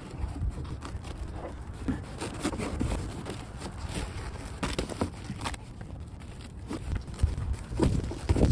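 A stiff, cold fabric liner being pushed and rolled by hand into a stretched Advanblack hard saddlebag: scattered rustles, scrapes and light knocks of the material and hands against the bag shell, over a low steady rumble.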